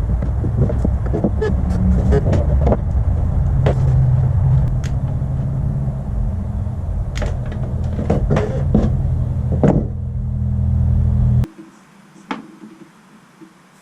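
A steady, loud low mechanical rumble with scattered knocks and clicks, which cuts off abruptly near the end and leaves only a few faint clicks.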